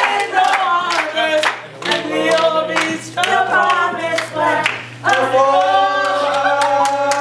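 A group of voices singing together in held notes, with handclaps; the singing breaks off briefly about two seconds and five seconds in.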